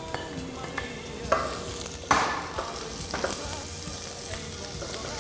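Garlic and onion frying in olive oil in a frying pan: a steady sizzle, with a few short, sharper sounds from the pan, the loudest about two seconds in.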